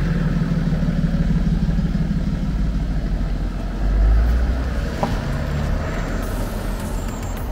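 BMW 335d GT's 3.0-litre six-cylinder diesel engine running as the car pulls away. It gets louder about four seconds in, then fades as the car drives off.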